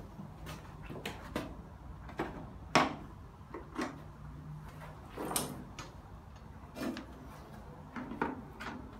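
Irregular clicks and knocks of metal tools and parts being handled while a Hyundai Accent 1.5 engine is taken apart, about a dozen sharp knocks with the loudest about three and five and a half seconds in.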